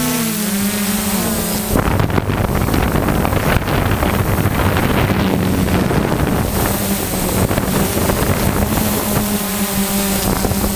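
Electric motors and APC 10x4.5 propellers of a DJI F550 Flamewheel hexacopter humming in flight, picked up by the onboard camera. The pitch wavers at first as the motors change speed. From about two seconds in, heavy wind rush on the microphone partly covers the hum, which comes through steady again near the end.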